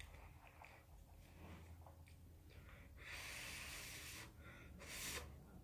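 Quiet room with two breathy puffs close to the microphone: a longer one, about a second, around three seconds in, and a short one near the end.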